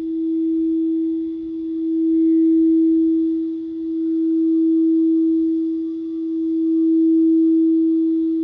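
A singing bowl sustaining one steady, nearly pure tone that swells and fades in slow, even waves about every two seconds.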